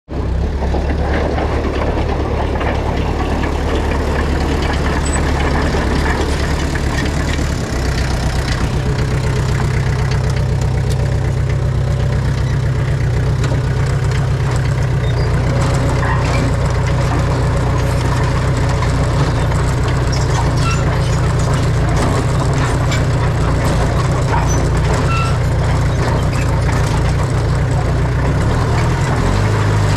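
Heavy diesel construction machinery running steadily under load, its low engine note changing about eight seconds in, with occasional knocks.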